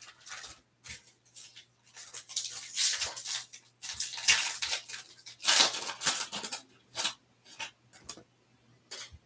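Shiny foil wrapper of a Topps Stadium Club Chrome card pack being torn open and crinkled, in crisp rustling bursts for several seconds, then a few light clicks as the cards are handled.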